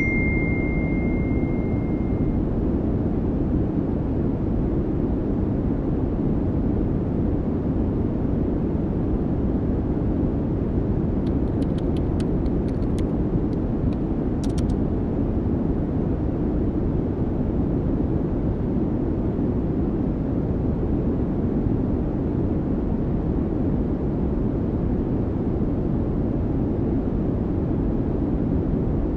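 Steady low rumbling noise. A single chime rings over the first couple of seconds, and a few faint keyboard clicks come near the middle.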